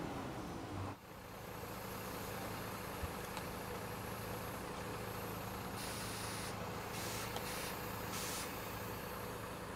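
Coach bus engine idling steadily, with a few short hisses of released air about six to eight seconds in.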